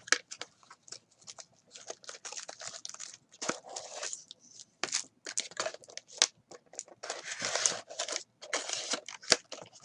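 Packaging of a sealed box of trading cards being torn open and handled: wrapper and cardboard crinkling and tearing in irregular bursts with small clicks, the longest tears about seven and eight and a half seconds in.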